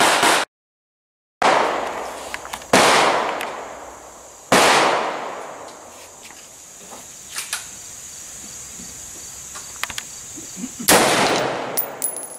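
A series of AR-15 rifle shots fired from a bench, each a sharp crack followed by a long echoing decay. Four shots land about a second and a half apart early on, then there is a long pause before a last shot near the end. The sound drops out completely for about a second near the start.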